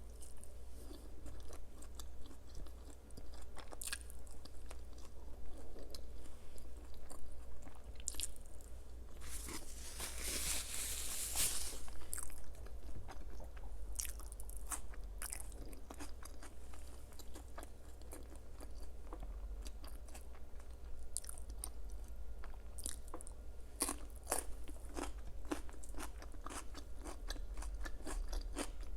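Close-miked eating sounds: a person biting and chewing crisp, crunchy food, with many sharp crunches, and a longer, louder stretch about ten seconds in.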